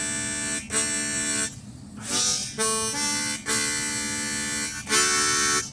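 Hohner Special 20 diatonic harmonica played as about six held notes and chords with short breaks between them, test-playing the draw notes to check the tuning of reeds that are being filed flatter.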